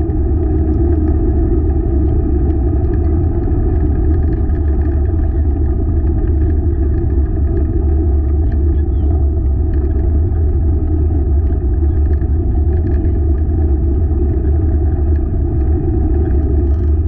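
Steady rumble of a four-dog open rig's wheels rolling along the race trail, an even noise without a break.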